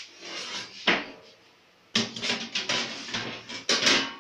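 Kitchen handling noises at a countertop oven with a wire rack: a sharp knock about a second in, then a busy run of clattering and rubbing from about two seconds on.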